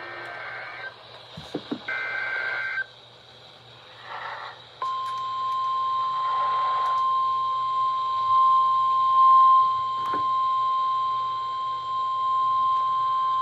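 Start of a NOAA Weather Radio emergency alert. First come short, harsh bursts of the SAME digital header data. About five seconds in, the steady single-pitch 1050 Hz warning alarm tone begins and holds for about nine seconds, over radio hiss and hum.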